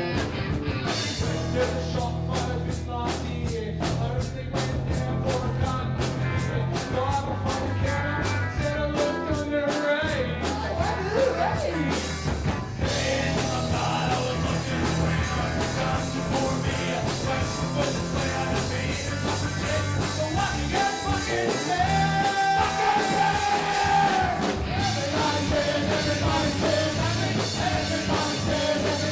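Live rock band playing a song with singing and guitar over a sustained bass line. A steady beat runs through the first twelve seconds or so, and then the arrangement changes.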